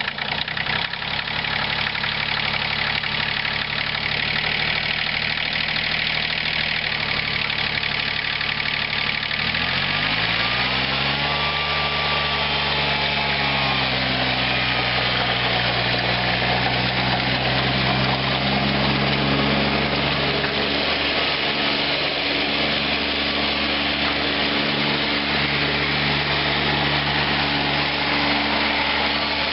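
Bobcat CT120 compact tractor's three-cylinder diesel engine running steadily at low speed just after starting. About ten seconds in it is throttled up, its note rising smoothly, and it then holds at the higher engine speed.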